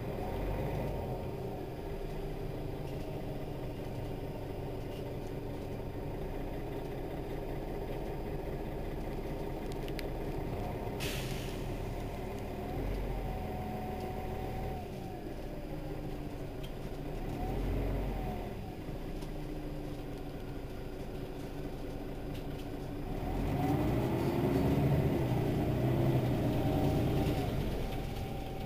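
Mercedes-Benz Citaro city bus engine running, with its pitch rising and falling several times and the engine getting louder from about 23 to 27 seconds as it revs up. A short air hiss comes about eleven seconds in.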